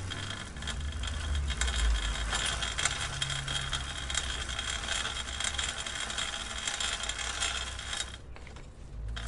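Bicycle chain clicking and rattling while the bike is ridden: a dense run of small irregular clicks over a low rumble, easing off briefly about eight seconds in.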